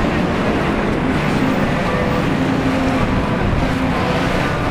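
Motorboat engines running steadily, mixed with wind and water noise.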